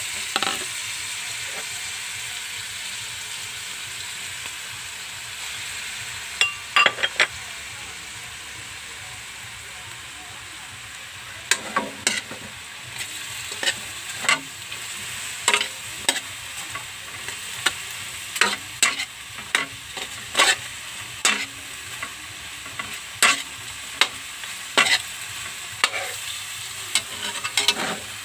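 Pork sizzling in a wok just after soy sauce and vinegar are poured in, the sizzle slowly dying down over the first ten seconds. A spatula scrapes and clacks against the wok, a few strokes about seven seconds in and then irregular strokes about once a second through the second half.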